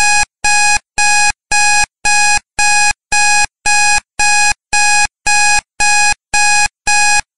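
Digital timer alarm going off at the end of a countdown: a loud, steady electronic beep repeating about twice a second.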